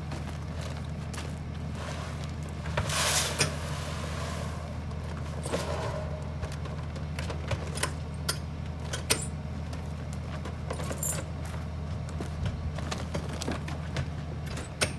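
Vehicle engine running with a steady low drone, with frequent light rattles and clicks over it.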